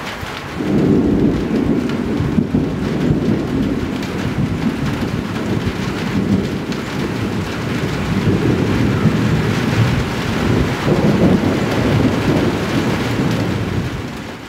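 Thunder rumbling on and on over falling rain, starting about half a second in and fading out near the end.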